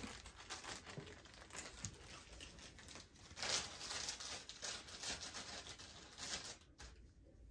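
Small plastic bag crinkling as it is handled and opened, in short irregular bursts, the loudest about three and a half seconds in.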